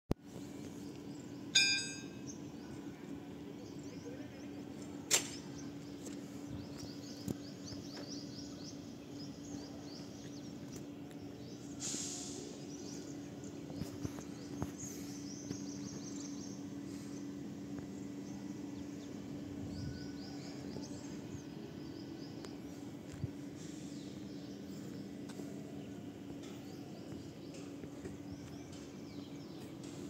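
Open-air ambience: small birds chirping over a steady low hum. A sharp pitched click comes about a second and a half in, and a sharp knock about five seconds in.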